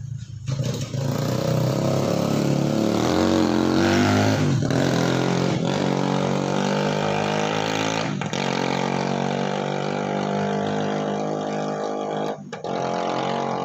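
A motor vehicle engine running steadily, its pitch rising and falling slightly about four seconds in, with a few short clicks over it.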